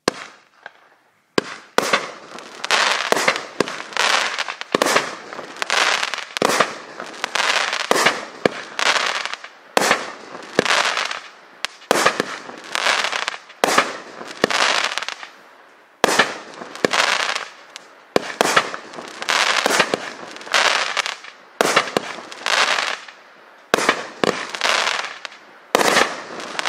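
Raccoon Fireworks 'Gold Dust' 16-shot, 1-inch-tube consumer fireworks cake firing shot after shot, about one every second or so. Each shot is a sharp report followed by a short hissing, crackling trail as the stars burst and strobe.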